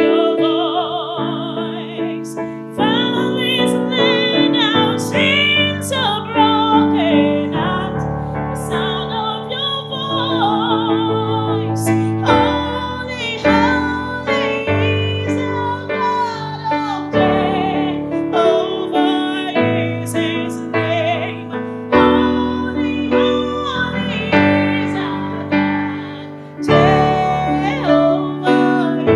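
A solo voice singing over piano accompaniment. The voice slides through long, ornamented notes above sustained chords.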